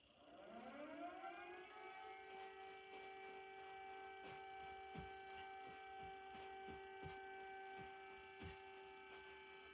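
Faint outdoor warning siren winding up, sliding up in pitch over about two seconds, then holding one steady tone.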